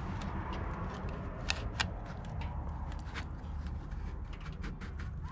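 Low steady rumble with scattered faint clicks and rustles, two sharper clicks about a second and a half in.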